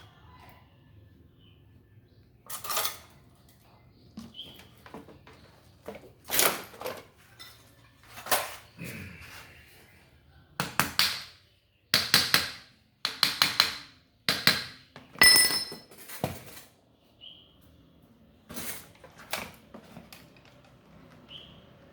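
A run of separate knocks and clinks, as of hard, mostly metal parts being handled and set down, thickest in the middle. One strike about fifteen seconds in rings with a clear metallic tone.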